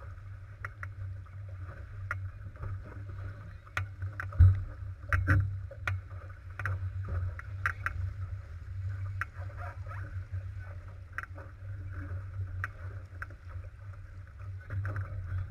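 Sailing dinghy moving upwind through choppy water at around five to six knots: water rushing and splashing at the bow over a steady low rumble, with scattered sharp knocks and thuds from the boat, the loudest about four and a half seconds in.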